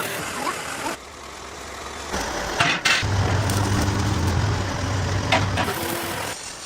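Machinery running with a steady low hum and a few sharp metallic clinks. The sound changes abruptly several times, as at cuts between clips.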